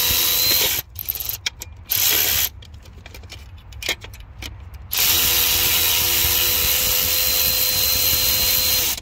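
Power ratchet spinning out the bolt that holds the fuel filter bowl on a 6.7 Powerstroke diesel, running in bursts with a steady motor whine: two short runs, a string of clicks, then a four-second run that stops as the bolt comes free.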